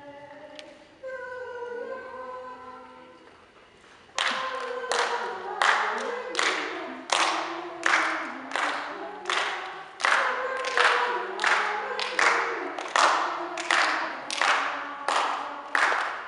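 Young children's choir singing a song. About four seconds in, hand claps join on the beat, roughly three claps every two seconds, louder than the voices.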